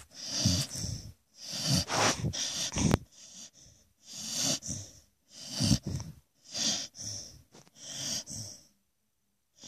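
Dog snoring in its sleep with its mouth open, about one breath a second, each a low rattle with a hiss on top; the snoring pauses briefly near the end.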